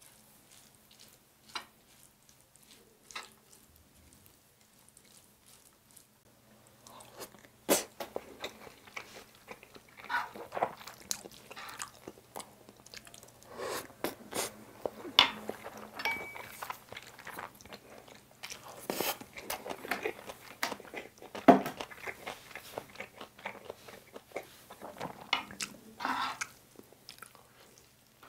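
A few light clicks and scrapes of a spoon in the pan of soy sauce egg rice, then from about seven seconds in close-miked chewing of the rice: many sharp wet clicks and smacks.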